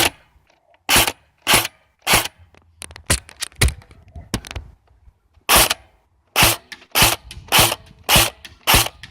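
Electric airsoft gun firing single shots, a sharp crack each time, about a dozen in all at one to two a second with a short pause in the middle.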